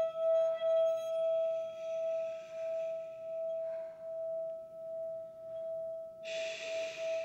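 A single sustained ringing tone, held at one pitch and pulsing slowly in loudness, with short breathy hisses about half a second in, near four seconds and near the end.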